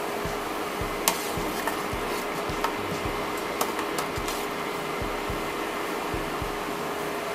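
Steady fan-like hum of an induction hob heating a pot, with a low pulse about twice a second, and a few light clicks of a metal spoon against the enamel pot during stirring.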